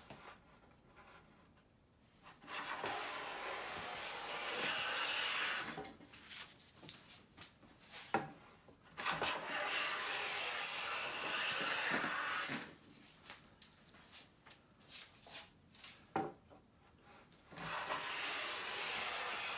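Siegley StS #7 bench plane taking shavings from straight-grained pine: three long cutting strokes of about three to four seconds each, the last still going at the end. A sharp knock comes in the pause before each stroke.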